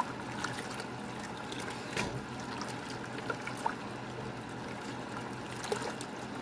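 A pot of soup broth bubbling on the stove, a steady liquid sound with a few light knocks.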